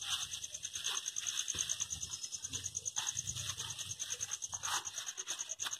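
Crickets chirping steadily in a fast, even pulse, with short bursts of rustling as cats nose into a plastic bag.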